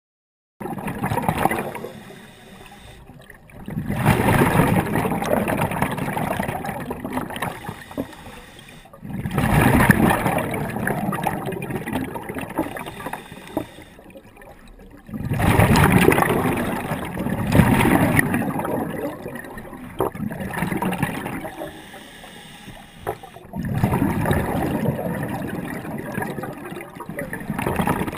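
Scuba diver's exhaled breath bubbling out of an open-circuit regulator, heard underwater: bursts of bubbling a few seconds long with quieter gaps between breaths.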